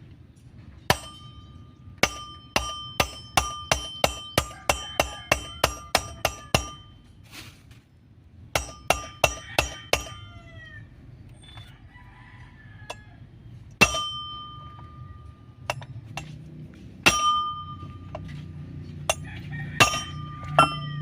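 Hammer blows on metal, each ringing with a clear tone: a quick run of about a dozen strikes at roughly two a second, a short pause, four more, then single blows spaced a few seconds apart.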